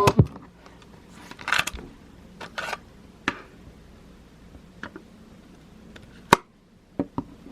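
Handling of a Sony TCM-450DV cassette-corder: a click as playback stops, then a few short rustles and a series of separate sharp mechanical clicks, the loudest about six seconds in.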